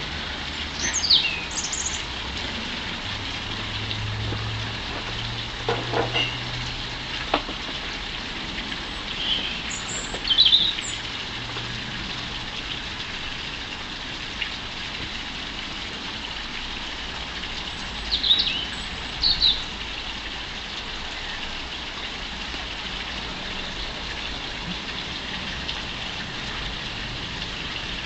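Short, high chirps of small garden birds in three brief clusters, over a steady outdoor hiss and a faint low hum.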